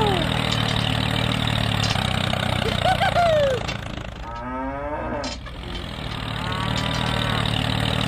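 Steady low engine drone of a miniature toy tractor running, with short high-pitched calls about three seconds in and again near the end. Near the middle a wavering pitched call sounds while the drone briefly dips.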